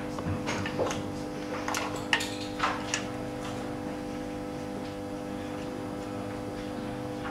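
Light metallic clicks and taps as a compression-gauge hose is handled and fitted at the spark plug wells of a Mitsubishi 6G72 V6 engine's cylinder head. The taps come in the first few seconds and then stop, over a steady low hum.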